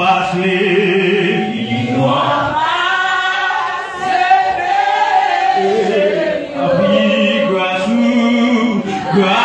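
Voices singing a slow worship song together, in long held notes.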